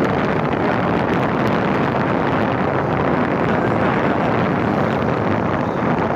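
Steady wind noise buffeting the microphone of a moving motorcycle, with the small motorcycle engines running underneath.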